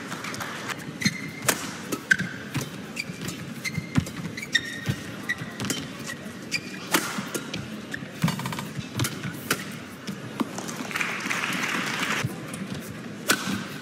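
Badminton rally on an arena court: sharp racket strikes on the shuttlecock and short squeaks of shoes on the court mat, then a short burst of crowd cheering near the end as the point is won with a smash.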